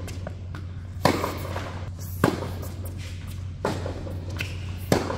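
Tennis ball being struck by rackets and bouncing on an indoor court during a rally: four sharp pops about a second and a bit apart, each with a short echo. A steady low hum runs underneath.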